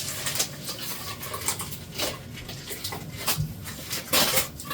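Unboxing handling sounds: packaging rustling and light knocks of plastic vacuum parts and accessories being taken out, in irregular short bursts, the strongest about two seconds in and near the end.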